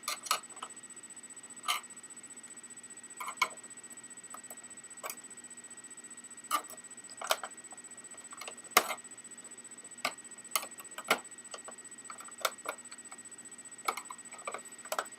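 Screwdriver tips prying at the plastic retaining clips of an Xbox 360 Slim's casing, making scattered sharp clicks and taps at irregular intervals.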